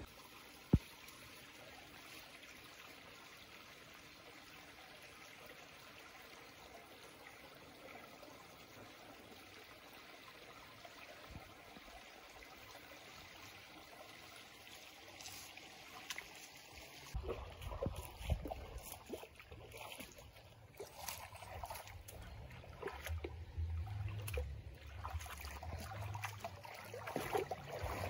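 Faint trickling of shallow water, with one sharp click about a second in. In the second half, low rumbles and splashing build up and get louder as a Komodo dragon wades through the shallows.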